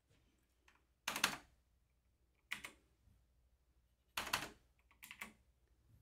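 Computer keyboard keys pressed in four quick clusters of clicks, keying in a KVM switch hotkey that switches the shared monitors to the other computer.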